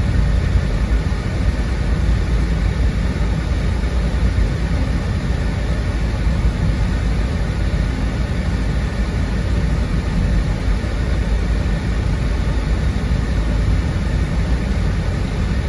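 Car driving at steady speed, heard from inside the cabin: a constant low rumble of road and engine noise.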